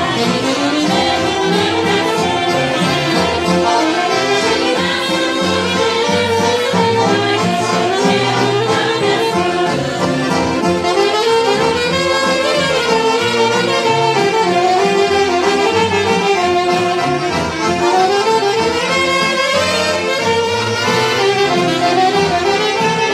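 Two saxophones playing a hymn melody together over accordion accompaniment, with the tune rising and falling continuously throughout.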